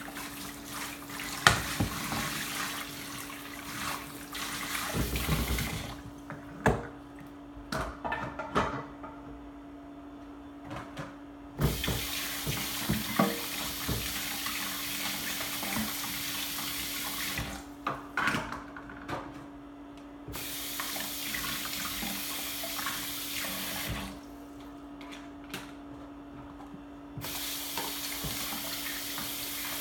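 Kitchen faucet with a pull-down sprayer running into the sink during hand dishwashing, the water shut off three times for a few seconds each. Dishes and utensils knock and clink against each other and the sink throughout.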